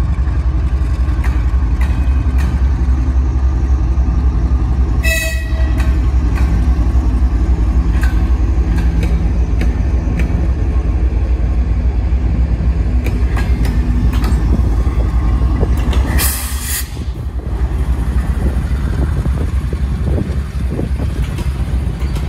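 TE33AC diesel locomotive engine running with a heavy, steady low drone as the train rolls past, wheels clicking now and then over rail joints. A short train horn toot sounds about five seconds in, and a brief loud hiss comes about three-quarters of the way through.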